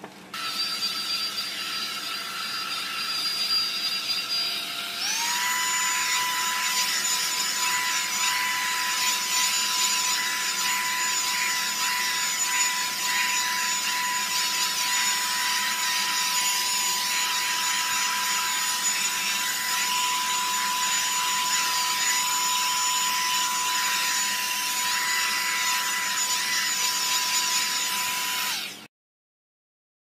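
A Revlon blow-dryer brush running, with a steady rush of air and a high motor whine. About five seconds in, the motor speeds up: its whine steps up in pitch and the air gets louder. The sound cuts off suddenly near the end.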